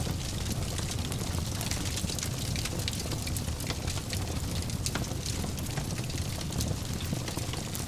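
Fire burning in a fireplace: a steady low rumble of flames with frequent sharp crackles and pops.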